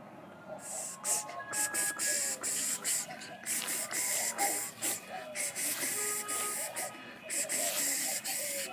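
Rustling and handling noise: repeated bursts of hiss with many short clicks as the camera is swung about over grass while following the puppies, with a few brief faint squeaks among them.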